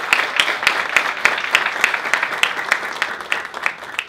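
A small group of people applauding, the hand claps growing sparser and quieter toward the end.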